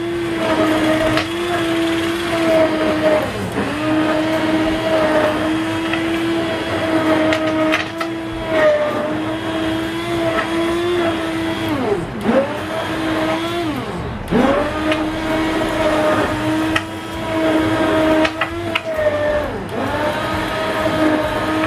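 Russell Hobbs hand-held stick blender puréeing soup in a steel pot: a steady motor hum whose pitch drops sharply and recovers a few times, most deeply twice about halfway through.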